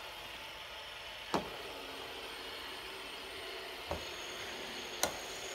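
Metal fidget spinners spinning on their bearings, a steady faint whir with a few faint steady tones. Three sharp clicks come about a second and a half in, near four seconds, and near the end.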